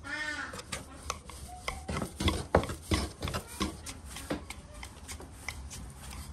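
Wooden rolling pin rolling out dough on a wooden board, giving a run of knocks and clacks, loudest around the middle. An animal calls briefly at the very start.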